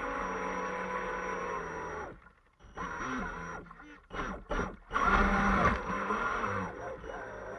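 Radio-controlled speedboat's motor, heard from a camera mounted on the boat, with water rushing along the hull. It runs steadily, cuts out about two seconds in, pulses on and off a few times, then runs louder again for the last couple of seconds, like throttle being given in short bursts.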